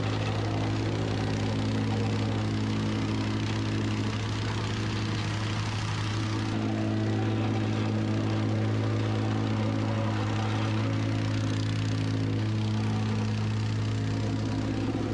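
Gas-engine plate compactor running steadily as it vibrates over a gravel base, compacting it: a constant engine hum with a rattling plate.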